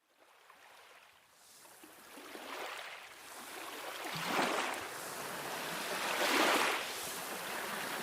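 Sea waves washing in, fading in from very quiet and swelling with a new wave about every two seconds.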